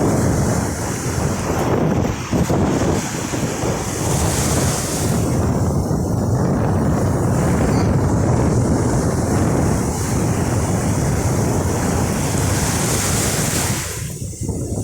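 Ocean surf breaking and washing up the beach, swelling in hiss twice, with wind buffeting the microphone.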